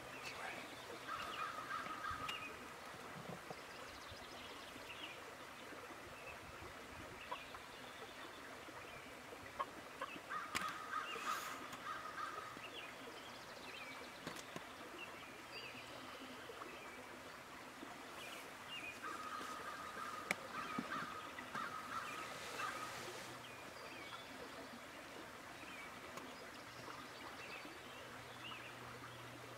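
Birds calling at dawn: three bouts of quickly repeated calls, each lasting a second or a few seconds, over scattered short songbird chirps.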